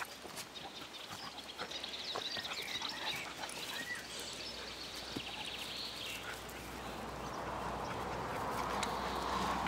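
Two large long-haired black dogs play-fighting on grass, with high, rapid chattering calls over the scuffle from about half a second to six seconds in.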